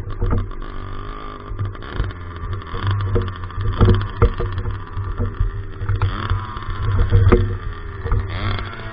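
66cc two-stroke motorized bicycle engine running under way, its pitch rising and falling with the throttle, with a few short knocks.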